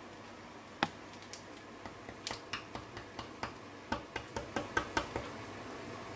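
A hand knocking on the baked rock-salt crust of a salt-baked chicken. There is one sharp knock about a second in, scattered taps after it, and a quick run of knocks near the end. The crust has set hard as rock in the oven.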